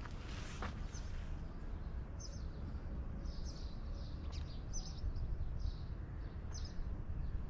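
Small birds chirping in short, scattered high calls over a steady low outdoor rumble, with a single footstep under a second in.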